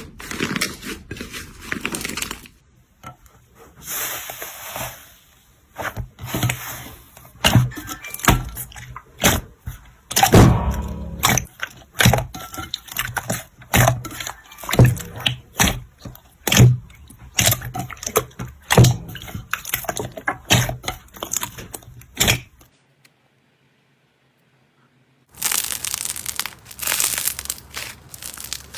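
Slime being squeezed, poked and stretched by hand, giving a run of irregular sticky pops, clicks and crackles. The sound stops for a couple of seconds about 23 seconds in, then the crackling picks up again.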